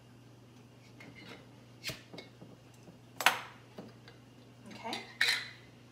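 Metal utensil clinking and scraping against a glass canning jar while home-canned chicken is dug out of it: a few sharp clinks, the loudest about three seconds in.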